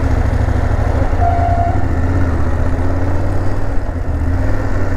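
Adventure motorcycle's engine running steadily at low speed as the bike rolls slowly over a muddy road, picking up a little speed. A brief steady tone sounds about a second in.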